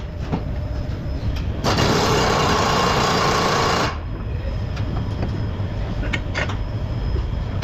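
A compressed-air tool runs in one burst of about two seconds, over a steady low workshop rumble.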